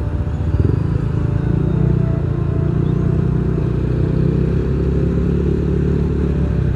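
Yamaha NMAX 155 scooter's single-cylinder engine running while riding slowly through traffic, a steady low rumble mixed with road and wind noise.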